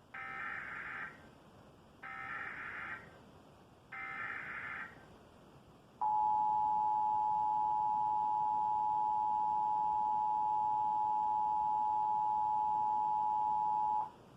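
Emergency Alert System required monthly test: three one-second bursts of SAME digital header tones, a second apart, followed by the EAS two-tone attention signal (853 and 960 Hz sounded together) held steady for about eight seconds. The header bursts encode the alert; the attention tone announces the message that follows.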